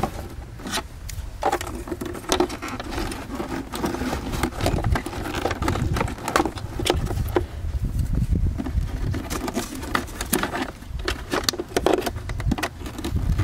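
Irregular plastic clicks, snaps and rattles as the wiring harness and its retainer clips are worked loose inside a Land Rover LR3's removed plastic front bumper cover, over a steady low rumble.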